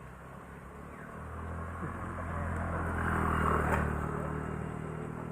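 A motor vehicle's engine hum builds up, is loudest about three and a half seconds in, then eases off as it passes by.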